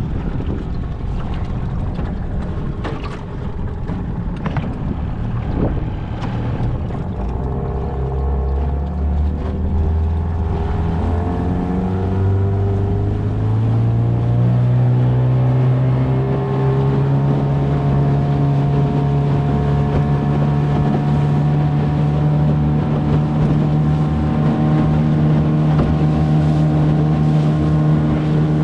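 Hangkai 18 hp outboard motor pushing a 15-foot aluminum boat. It runs low among wind noise and a few knocks for the first several seconds, then revs up with its pitch climbing in steps, and holds a steady higher note from about halfway through.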